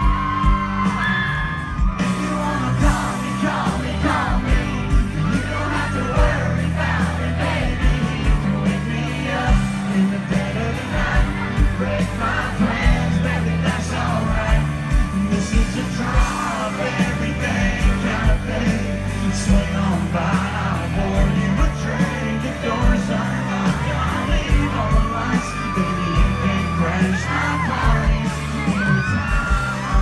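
Live country band playing loudly over the stage sound system, with a male lead vocal and a steady, pounding kick-drum beat, while the crowd yells and whoops.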